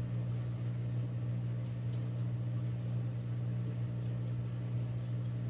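A steady low electrical hum from an appliance running, unchanging throughout.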